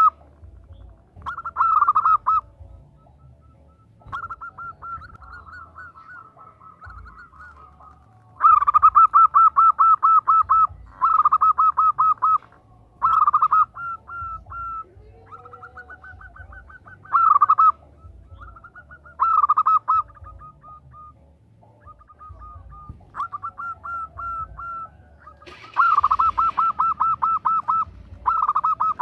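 Zebra dove (perkutut) calling to draw a male: repeated bursts of rapid, stuttering cooing notes, each burst lasting one to three seconds, some loud and some fainter.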